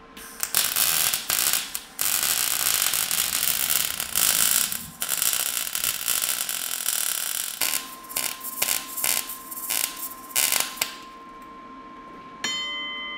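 Wire-feed (MIG) welder arcing on steel tubing: a crackling, sizzling hiss in stop-start beads, one long run of several seconds followed by several short tacks, stopping about two seconds before the end.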